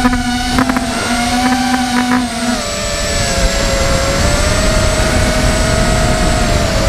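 Electric motor and propeller of a small remote-controlled aircraft, heard from on board: a steady whine that dips a little in pitch partway through and comes back up, with wind rushing over the microphone.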